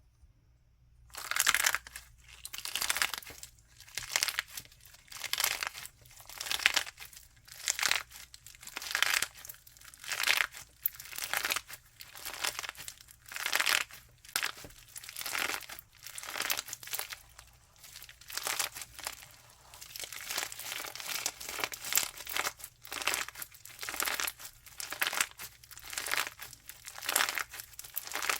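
Crunchy slime being squeezed and pressed by hand, crackling in repeated crunchy bursts about once a second, starting about a second in.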